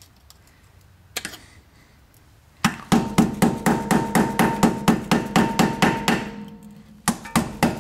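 Rapid metallic tapping, about four ringing strikes a second, as a scraper blade is driven into the gasket seam of a Dana 35 rear differential cover to pry the cover loose. One knock about a second in, then the fast strikes start, pause briefly near the end and resume.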